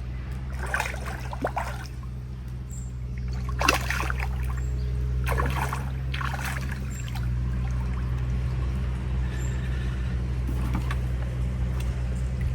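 Hooked carp splashing at the surface while being played in, about six short splashes spread out, over a steady low rumble.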